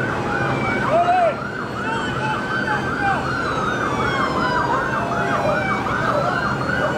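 Emergency-vehicle siren in a fast yelp, about three rising-and-falling wails a second, cutting off near the end, with one brief lower whoop about a second in.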